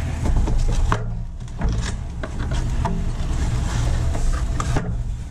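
Cardboard box being opened by hand: the lid sliding and rubbing against the box, with scattered light knocks and rustles.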